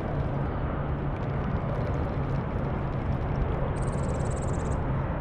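A steady low drone with a rushing noise over it. About four seconds in, a fishing reel gives a second-long run of rapid clicking while the line is worked against what seems to be a snag in weeds.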